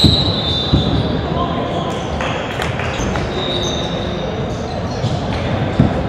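A basketball bouncing on a hardwood gym floor: thuds at the start, again just under a second in, and once near the end, over indistinct voices echoing in a large gym.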